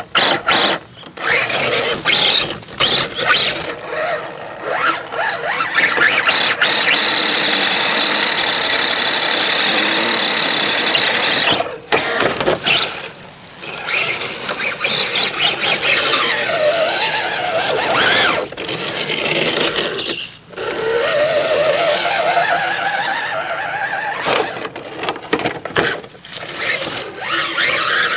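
Axial radio-controlled Jeep Rubicon crawler's electric motor and gears whining as it climbs over rock and mud, with many sharp knocks. The whine holds steady for several seconds and cuts off suddenly, then rises and falls in pitch with the throttle.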